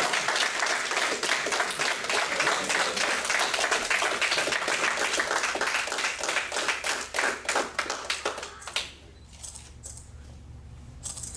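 A small group clapping and applauding, fading out about eight or nine seconds in.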